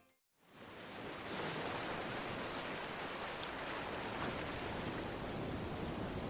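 Ocean surf: a steady rushing wash of breaking waves that fades in about half a second in, after a moment of silence.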